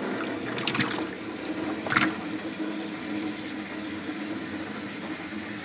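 Water from a garden hose pouring steadily into a plastic tub that already holds water. Two brief sharp sounds stand out, about one and two seconds in.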